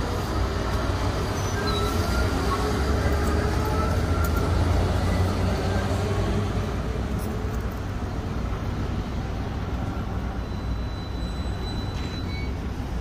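Low rumble of road traffic and running car engines, swelling in the middle as a vehicle passes close by, then easing off.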